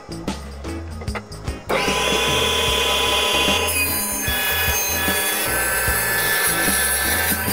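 An electric power tool running and cutting wood, starting abruptly about two seconds in and then holding a steady, loud whine over soft background music.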